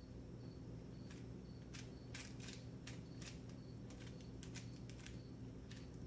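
Plastic 3×3 speed cube being turned quickly during a solve: irregular clicks and clacks as its layers turn and snap into place, several a second in uneven clusters.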